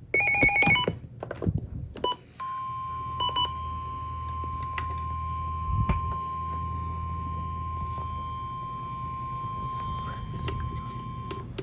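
A NOAA Weather Radio emergency alert broadcast: a short burst of SAME data tones, then about two seconds in the steady 1050 Hz warning alarm tone, held for about nine seconds before it cuts off. The tone is the signal that a warning message follows. A low hum runs underneath.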